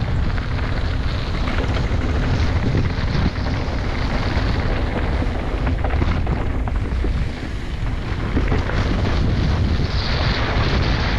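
Wind buffeting a helmet-mounted camera's microphone during a fast mountain-bike descent, with the rumble of tyres on a dirt trail and the bike rattling over bumps.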